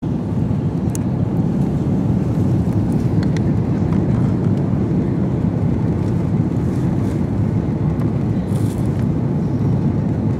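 Steady low roar inside the cabin of an Airbus A330-300 airliner in flight, engine and airflow noise, with a few faint ticks.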